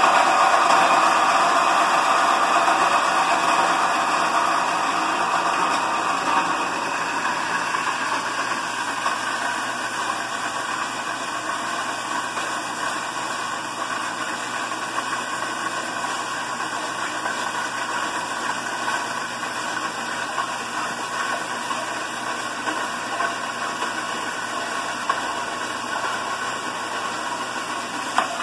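Horizontal metal-cutting band saw running and cutting through an aluminum gutter with a steady hissing, grinding noise. It is loudest at first, eases off over the first several seconds and then holds steady, with a short click near the end.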